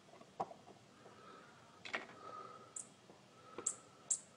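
Handling noise at a plastic wall-outlet plate: a few faint, sharp clicks and brief hissy scrapes as fingers and a small wooden stick work at the cover.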